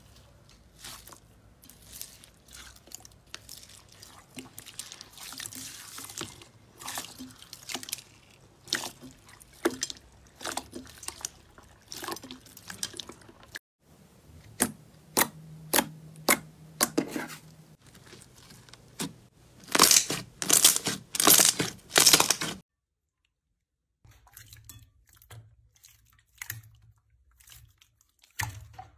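Hands squishing slime: wet crunching and squelching as a hand presses into a bowl of small gel beads, then a run of sharp clicking pops as fingers press a disc of clear jelly slime, with the loudest bursts about two-thirds through. After a short break, softer wet squelches as clear slime is kneaded.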